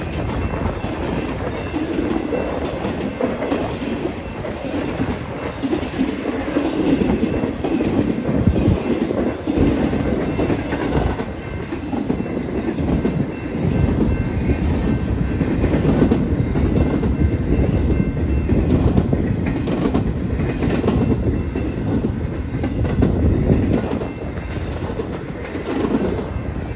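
BNSF freight train passing: a continuous rumble of railcar wheels rolling on the rails, with clatter from the passing cars and faint high steady wheel tones above it.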